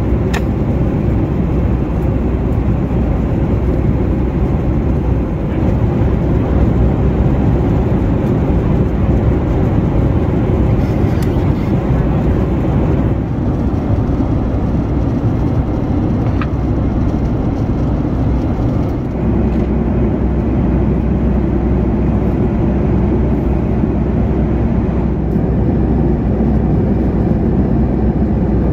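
Steady in-flight cabin noise of a Boeing 737 MAX 9 at cruise: the even rush of air and engine noise heard from inside the passenger cabin, with a few faint clicks.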